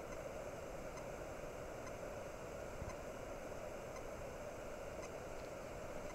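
Steady hiss with a few faint scattered ticks: the quiet background noise picked up by a body-worn camera's microphone while the wearer stands still.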